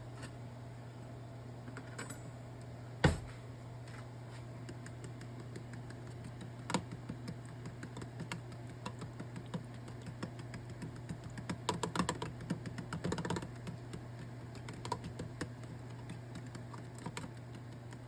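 Hot oil in a frying pan crackling and popping in scattered, irregular pops, thickest through the middle, over a steady low hum. A single sharp knock comes about three seconds in.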